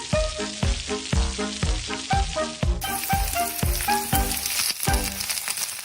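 Background music with a steady drum beat and a melody, with a continuous sizzling hiss laid over it that turns brighter about three seconds in.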